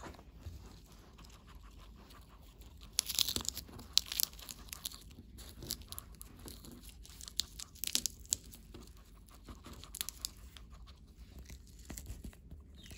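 Crisp crackling and tearing of a fresh lettuce leaf being folded by hand around a piece of meat, loudest in short bursts about three seconds in and again around eight seconds, with lighter rustles between.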